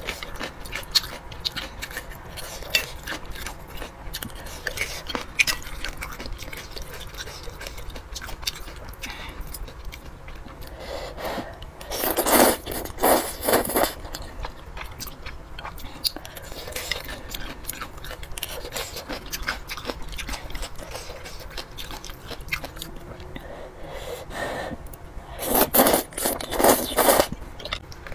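Close-miked mukbang eating sounds: a steady run of wet chewing and mouth clicks from thick noodles in sauce, with two loud bouts of slurping, about twelve seconds in and again near the end.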